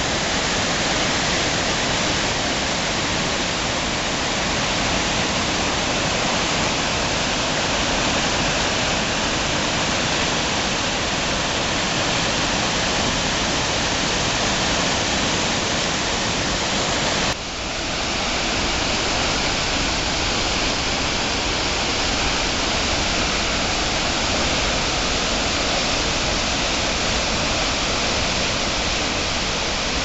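Rain-swollen stream rushing as whitewater through a rocky gorge, a steady loud rush of water. It cuts off for a moment a little past halfway, then resumes just as steadily.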